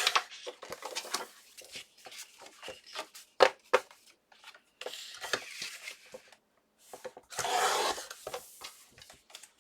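Cardstock being cut on a paper trimmer: two raspy sliding strokes of about a second each, one at the start and one about seven and a half seconds in, with scattered taps and paper-handling clicks between.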